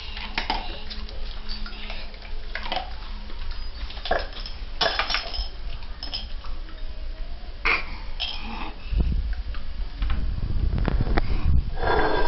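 A bowl of dry dog kibble clinking and rattling as a toddler's hands rummage in it, in short irregular clicks.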